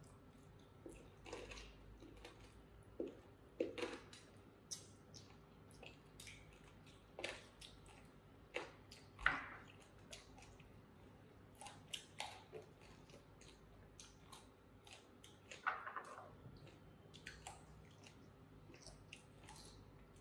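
Faint eating sounds: chewing, with irregular light clicks of chopsticks against bowls and plates.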